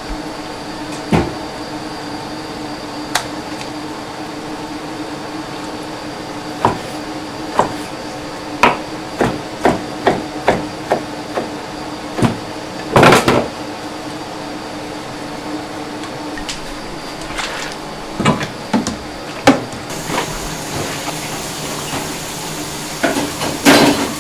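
Kitchen knife chopping on a plastic cutting board: irregular single knocks, with a louder run of quick chops about halfway through. A steady low hum runs beneath.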